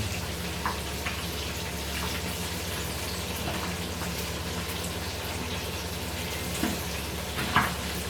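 Fish frying in hot oil: a steady sizzle with scattered small crackles.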